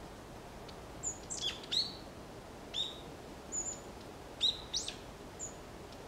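Common kingfisher giving a series of short, high-pitched calls in several clusters from about a second in: quick downward-sweeping notes, some levelling off into a brief whistle.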